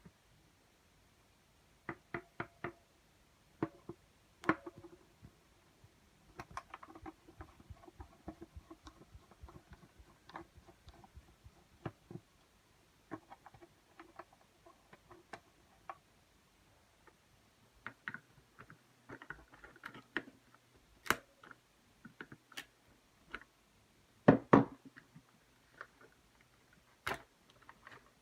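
Hands working on a mechanical keyboard: irregular small clicks and light knocks of hard plastic parts being handled, with a quiet stretch in the middle and a louder double knock near the end.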